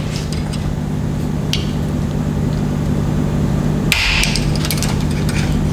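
Power impact wrench running with a steady hum while it works a tight 6 mm Allen bolt out of a motorcycle fork leg, with a clatter about four seconds in.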